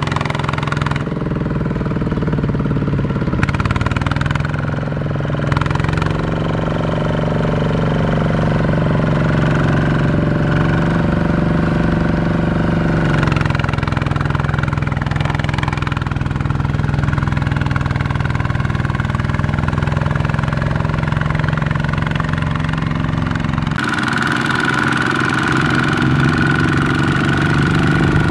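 Single-cylinder diesel engine of a two-wheel walking tractor running steadily while it pulls a loaded trailer through deep mud. The engine note shifts abruptly a little before halfway and again near the end, where a steady higher whine joins it.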